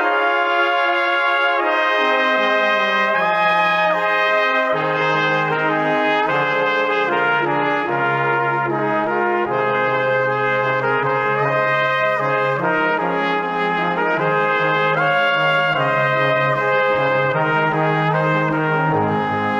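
Background music played on brass-like instruments: held notes over a slow, stepping bass line.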